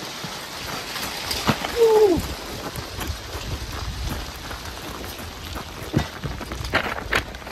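Rain falling steadily, with a few sharp ticks of drops and a low rumble underneath. About two seconds in comes a short falling vocal sound.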